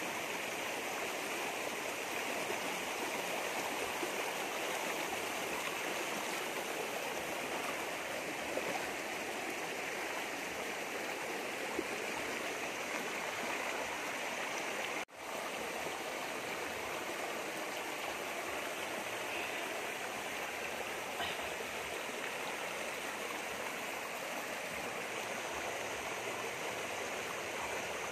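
Shallow rocky stream rushing and splashing over boulders, a steady wash of water. It cuts out for an instant about halfway through.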